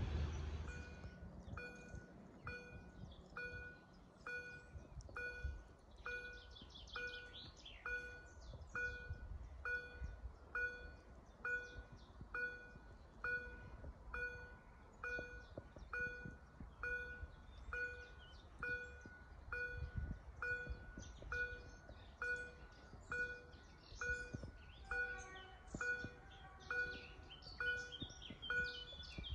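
Railway level-crossing warning bell dinging evenly, about once a second, while the rumble of a passing train dies away in the first second. Birds chirp in the background.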